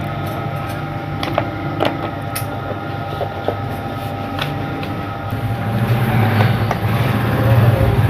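Plastic casing of an electric fan heater being handled and set down, with scattered clicks and knocks over a steady mechanical hum. From about five seconds in a rushing noise comes up and the hum grows louder.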